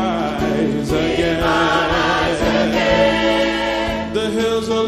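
Gospel choir singing in harmony, holding long notes.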